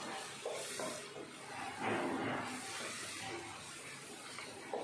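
Eggplant pieces coated in chilli powder frying in a nonstick kadai, sizzling while a wooden spatula stirs and scrapes through them, with the loudest stir about two seconds in.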